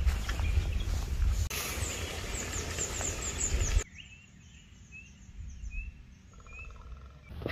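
Birds chirping in a forest over steady outdoor background noise with a low rumble; short high chirps repeat in quick series. About four seconds in, the background noise drops away, leaving short chirps spaced under a second apart and a brief rapid trill near the end.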